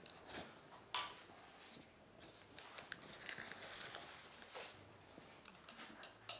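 Faint rustling and small ticks from a cardboard box of cornstarch being handled, with one sharper tap about a second in.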